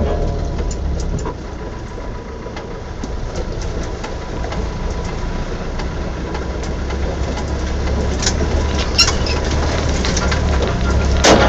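Land Rover engine running steadily at low speed as it drives through a shallow muddy ford, with water splashing under the wheels and knocks from the vehicle over the ruts. A loud, short clatter near the end.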